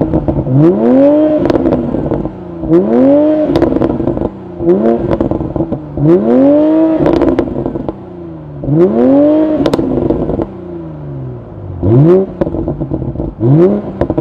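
Toyota GR Supra MK5's B58 turbocharged inline-six being blipped about seven times, each rev rising and falling quickly, with exhaust pops and crackles as the revs drop.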